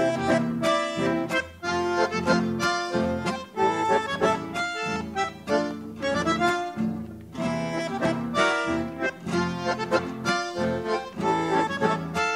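Instrumental background music led by an accordion, playing a quick run of notes.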